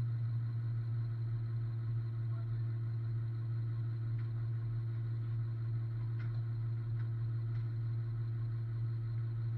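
Steady low drone of a truck engine idling, heard from inside the cab, with a few faint ticks in the middle.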